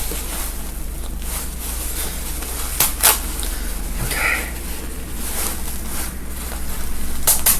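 Seam ripper cutting stitches out of a gown's seam: fabric handling with a few sharp snaps of thread, two about three seconds in and two more near the end, over a steady low hum.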